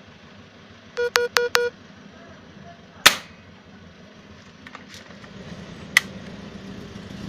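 Four quick electronic beeps, then one sharp click about three seconds in, followed by a few lighter clicks, over a low steady hum that grows louder near the end.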